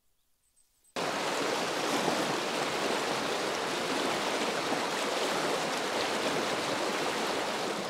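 Steady rush of flowing river water, starting abruptly about a second in after a moment of silence.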